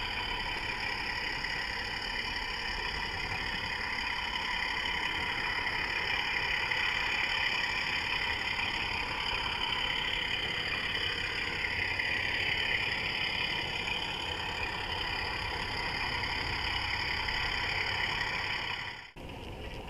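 Model Class 24 diesel locomotive running, heard from on board: a steady engine-like drone with a high hum over it. It cuts off suddenly near the end, and a quieter running sound follows.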